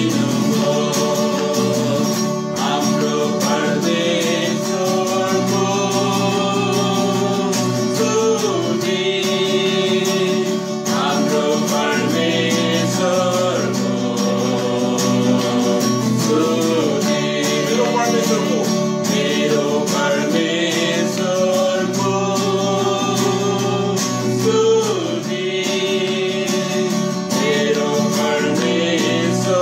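Acoustic guitar strummed steadily, accompanying a man singing a worship song.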